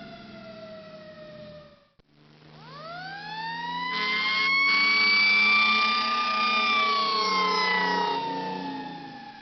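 Fire truck siren: a falling tail fades out, then about two seconds in a new siren winds up to a steady high wail and slowly winds back down, over the low hum of the truck's engine.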